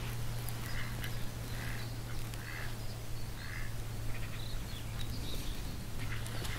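Duck quacking, four calls spaced about a second apart in the first half, over a steady low hum.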